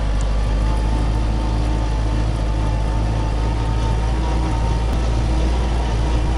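Small tractor's engine running steadily while driving, a low drone with a faint steady whine above it.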